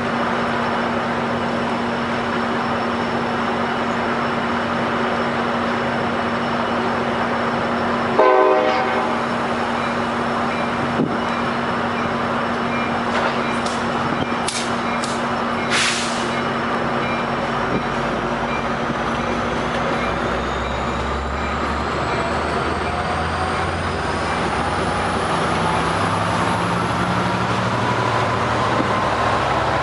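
A train heard over a steady hiss of rain. A sharp knock comes about eight seconds in. In the second half a deep engine sound builds, with slowly rising whining tones, as the train draws near or throttles up.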